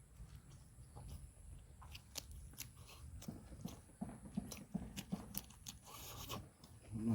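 A person chewing and biting food, with many small sharp clicks and crunches.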